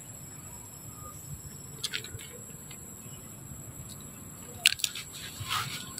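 A few short, sharp cracks and crunches of a macaque breaking open peanut shells and chewing, a couple about two seconds in and a louder cluster near the end, over a steady high-pitched hum.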